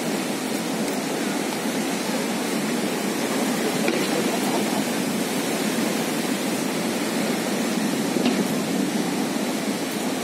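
Steady rushing noise throughout, with faint single pops from fireworks about four seconds in and again near the end.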